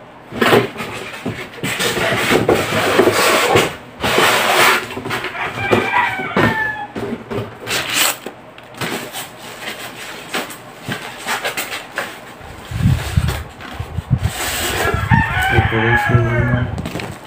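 Rustling and knocking from a boxed speaker and its packing being handled, with a bird's pitched call twice: briefly about six seconds in, and for about two seconds near the end.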